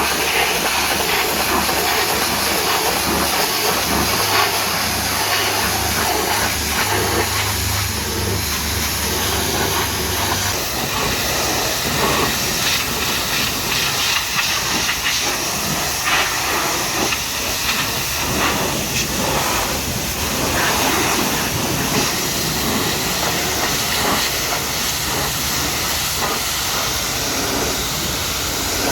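High-pressure water jet from a pressure washer spraying onto a truck: a steady hiss of spray. A low hum runs underneath and stops about a third of the way in.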